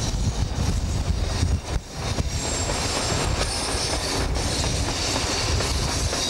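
DB class 215 diesel-hydraulic locomotive running close by at a station platform: a steady low engine rumble with a hiss of higher noise over it.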